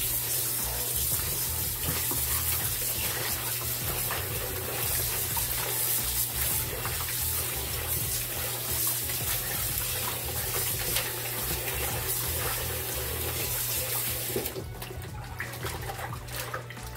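Kitchen tap running into a plastic bowl of oxtail pieces in a sink while hands rub and wash the meat under the stream. The tap shuts off near the end, leaving the splashing of hands in the water.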